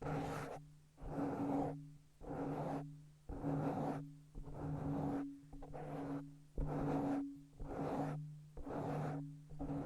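Hands rubbing together close to the microphone in repeated swishing strokes, about one a second, each starting sharply and fading away.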